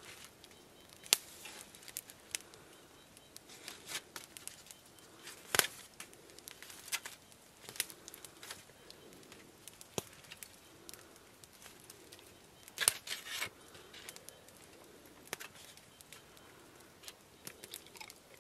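Sparse sharp crackles and pops from a small wood campfire, a few of them louder, about one second in, five and a half seconds in and a short cluster around thirteen seconds. Aluminium foil crinkles softly as raw grouse meat is handled on it.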